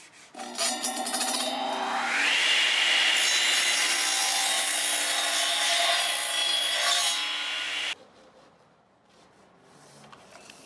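DeWalt radial arm saw spinning up with a rising whine, then running and cutting through a pine board for several seconds. The sound cuts off suddenly about eight seconds in.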